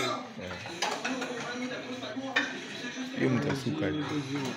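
Serving utensils clinking and scraping against platters and plates as food is served at a buffet, a few sharp clinks standing out. Voices talk in the background, more from about three seconds in.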